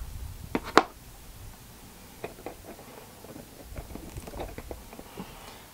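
Small plastic clicks and taps from hands swapping parts on a Figma action figure: a sharp click just under a second in, then a scatter of faint ticks.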